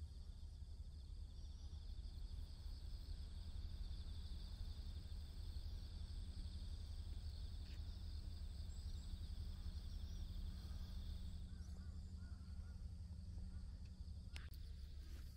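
Outdoor rural ambience: a high, steady, finely pulsing insect trill fades out about three-quarters of the way through, over a low steady rumble, with a few faint clicks near the end.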